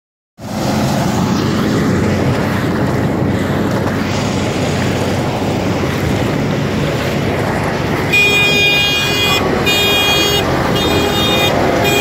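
KSA 8500 combine harvester with its Ashok Leyland diesel engine running, a loud, steady machine noise. About eight seconds in, a high-pitched alarm tone starts, pulsing on and off about once a second.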